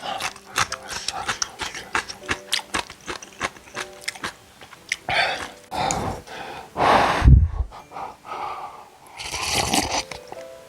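Close-miked eating of instant cup noodles: a quick run of wet chewing clicks for about five seconds, then three or four longer, louder slurps, the middle one with a low thump.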